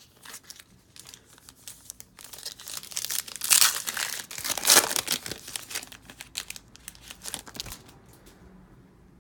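Foil wrapper of a trading-card pack being torn open and crinkled in the hands, with the loudest crackles a few seconds in.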